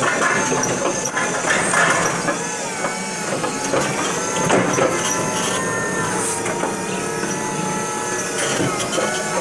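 Electric stand-up reach truck's hydraulic pump motor whining steadily as the mast and forks handle a pallet high in the racking. The pitch shifts as the motor changes speed, with scattered clanks and clicks from the mast and forks.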